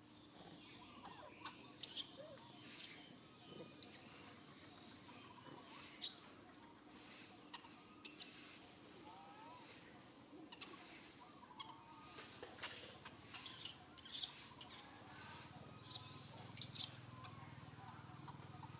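Faint outdoor ambience: a steady high insect drone, small chirping calls scattered throughout, and occasional sharp ticks and crackles, the loudest about two seconds in and again about fourteen seconds in.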